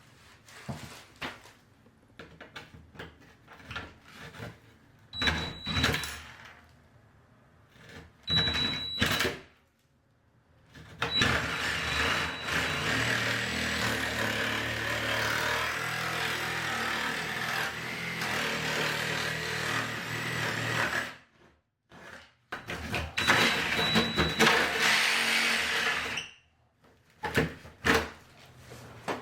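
Reciprocating saw cutting through a wooden door. It starts and stops in short bursts, then runs for about ten seconds, stops, and runs again for a few seconds near the end.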